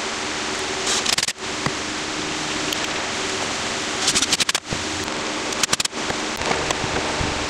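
Hand screwdriver driving a wood screw into an oak chair spindle: short bursts of rapid clicking, about a second in, around four seconds and near six seconds, over a steady hiss.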